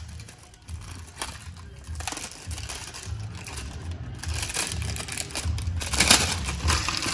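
Packaging crinkling and crackling as the e-bike's pedals are taken out of the shipping box, irregular and louder in the second half.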